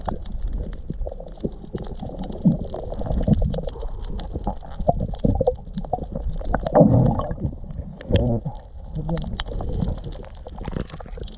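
Muffled underwater sound picked up through a camera's waterproof housing: low rumbling water movement with gurgles, bubbling and scattered clicks. The loudest bubbling comes about seven and eight seconds in.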